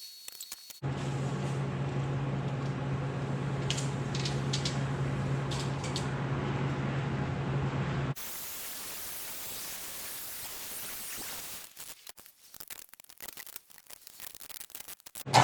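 Electric arc welding on a steel brace: a steady crackling hiss over a low electrical hum, starting abruptly about a second in and cutting off after about seven seconds. Quieter, patchy background noise follows.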